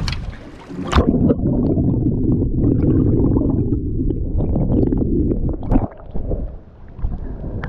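Muffled underwater rushing and gurgling as the camera's microphone goes under the sea with the landing net, opened by a splash about a second in; a second splash near the six-second mark as it breaks the surface.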